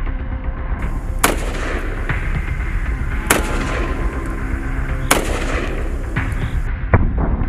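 Four gunshots about two seconds apart, each a sharp crack with a brief smear after it: rounds fired in a ballistic test of armoured glass. A steady low rumble runs underneath.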